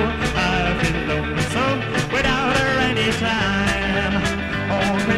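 Rock-and-roll style band music in a break between sung lines: drums keeping a steady beat under a lead melody that slides up and down in pitch.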